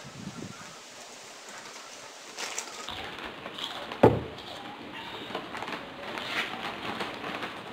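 A drinking glass set down on a table with a single sharp knock about four seconds in, among light rustling and small clicks.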